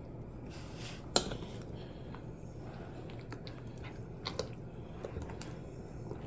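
Kitchen utensils clinking and knocking against dishes: one sharp knock about a second in, then a few lighter clicks.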